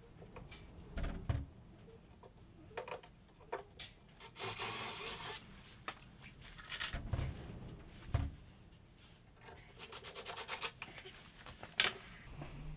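Tool-handling noises on a metal-topped workbench: scattered knocks as cordless drills and wood pieces are picked up and set down, a scraping rub about four seconds in, and a quick run of clicks about ten seconds in.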